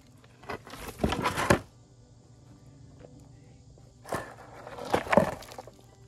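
Wooden concrete form boards and stakes being worked loose and handled over gravel. There are two bursts of scraping and crunching, each about a second long, one about a second in and one about four seconds in.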